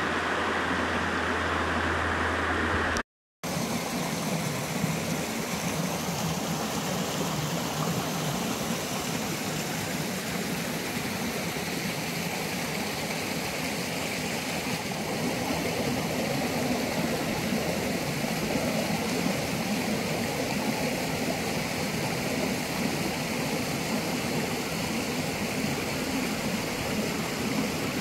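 Steady rush of a small mountain stream flowing over rocks, broken by a short drop to silence about three seconds in.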